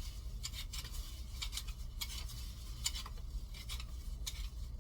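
Raw potato being peeled by hand: a quick, irregular run of short scraping strokes of the blade across the skin. A steady low hum runs underneath.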